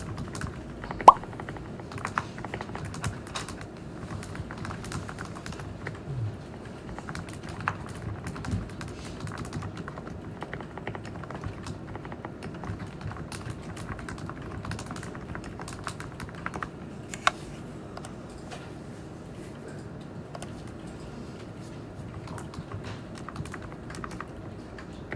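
Steady typing on a computer keyboard: a dense run of key clicks, with a few louder keystrokes, one about a second in.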